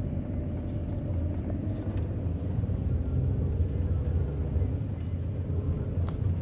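Steady low rumble of a moving car, engine and tyres on a wet road, heard from inside the cabin.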